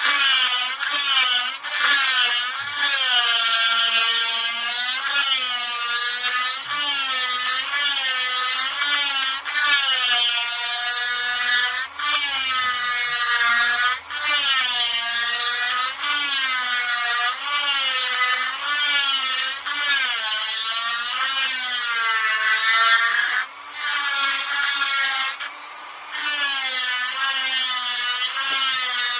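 Small high-speed rotary grinder cutting into the aluminium of a McCulloch S550 chainsaw cylinder while the transfer ports are raised and reshaped for porting. Its whine dips and recovers in pitch about once a second as the bit bears on the metal, with brief pauses near 12 and 14 seconds and around 24 to 26 seconds in.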